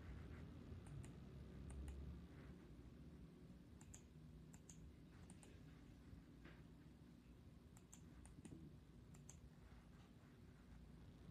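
Faint clicking of a Magic E M107 wireless optical mouse's buttons. Each click comes as a quick double tick of press and release, about eight times at irregular intervals.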